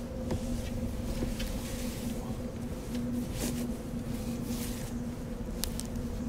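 Steady low ambient drone: a constant hum over a low rumble, with faint rustles and small ticks as a man shifts and sits up.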